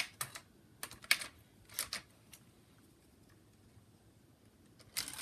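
Toy monster trucks and plastic playset parts clicking and clattering: a quick run of sharp clicks in the first two seconds, a quiet stretch, then more clatter near the end.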